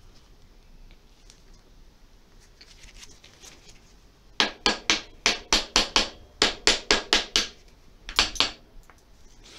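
A hand tool working at the seized screws of a motorcycle's brake fluid reservoir cap. About halfway through comes a quick run of about a dozen sharp taps, about four a second, then three more near the end.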